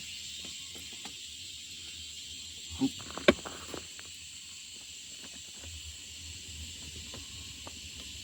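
A steady, high-pitched insect chorus, with two sharp clicks about three seconds in. The underground snoring sound is not heard.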